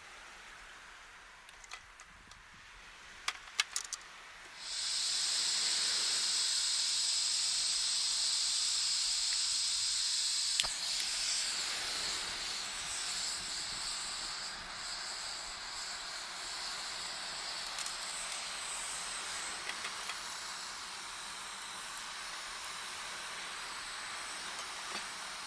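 A few light clicks, then food hitting a hot pan and sizzling: a sudden loud hiss about four and a half seconds in that slowly eases off.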